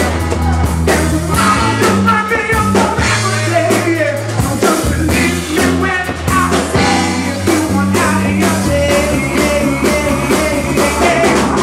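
Live soul band playing a song: a male lead singer over electric guitar, keyboard and drums.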